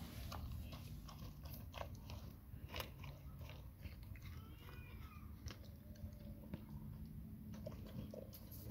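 Labrador retriever chewing and biting into grilled food: a run of irregular sharp clicks of jaws and teeth on the food.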